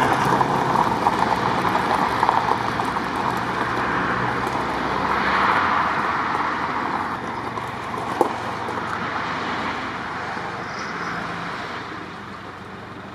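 Land Rover Defender towing a boat trailer, driving slowly over gravel; its engine and tyre noise fade steadily as it moves off. A single sharp click about eight seconds in.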